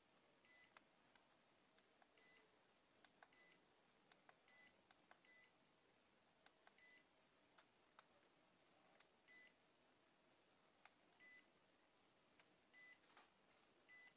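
VS-300 vein finder beeping: about ten short, high beeps at irregular intervals, with faint clicks between them, as its control buttons are pressed.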